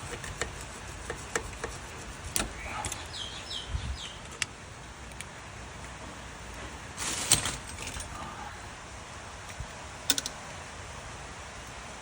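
Metal hand tools clinking and knocking in scattered light strikes, with a louder clatter about seven seconds in and a short one just after ten seconds.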